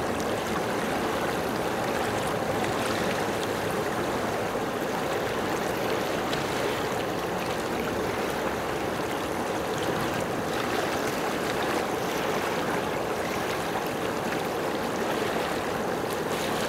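Steady rush of running water, an even unbroken noise with no change in level.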